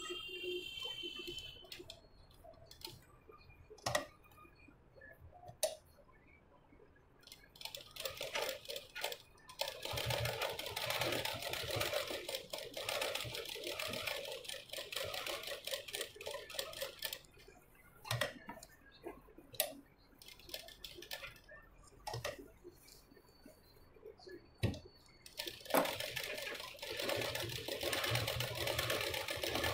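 Domestic sewing machine stitching lace trim onto a blouse: two long runs of steady stitching, the first from about 8 s to 17 s and the second from about 26 s to the end, with a few sharp clicks in the pause between them.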